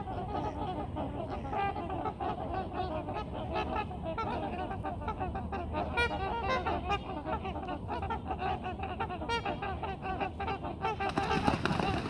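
A flock of trumpeter swans calling: many overlapping, brassy honks, the calls the family groups exchange before taking off. Near the end a louder rush of splashing and wing noise sets in as the swans begin their run across the water.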